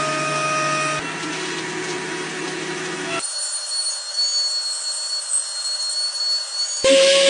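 Electric wood routers running and cutting walnut: a handheld compact router working inside a template, then a table-mounted router trimming the board's edge, each a steady motor whine, with abrupt changes where the clips are cut together. A louder, different sound cuts in near the end.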